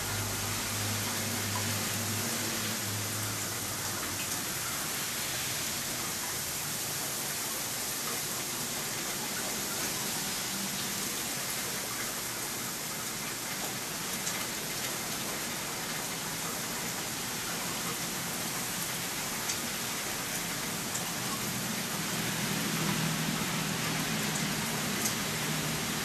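Steady hiss of wintry rain falling on wet pavement, slush and parked cars, with a few scattered ticks of drops. A low hum sits under it at the start and again near the end.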